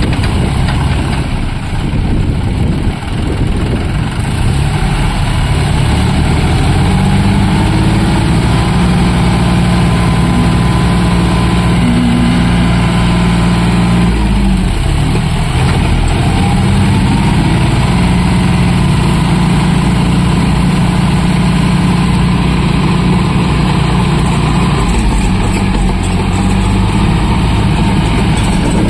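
Two John Deere tractors' diesel engines running hard under load, pulling against each other on a chain in a tug-of-war. A loud, steady engine note, with a brief change in pitch about halfway through.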